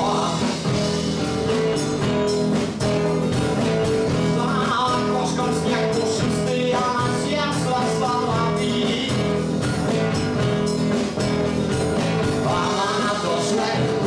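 Live band music: a man singing into the microphone over guitar and a steady beat.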